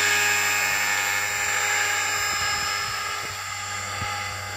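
Electric RC model helicopter (T-Rex 450 in a scale Lama body) hovering: a steady high motor-and-rotor whine over a low hum, slowly getting quieter.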